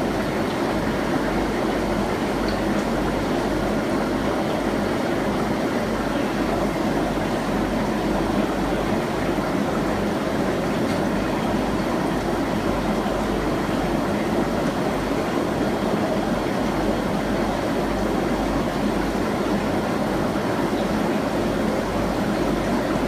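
Steady rushing hum of aquarium pumps and filtration, with a low hum beneath and no distinct events.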